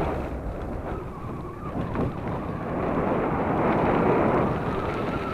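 Wind rushing over the camera microphone, with the rumble of mountain-bike tyres rolling on a gravel dirt road.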